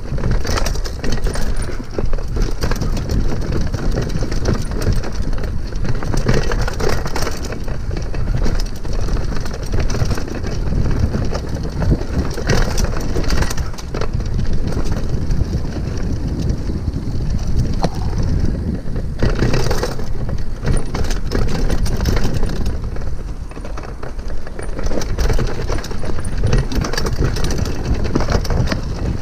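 Mountain bike ridden fast down a dirt woodland trail: wind rushing over the bike-mounted microphone, with tyres running on dirt and the bike rattling and knocking over bumps.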